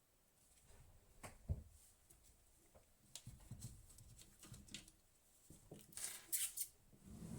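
Handling noises of computer hardware: scattered light clicks and taps, one sharp knock about one and a half seconds in, and a short scraping rustle about six seconds in.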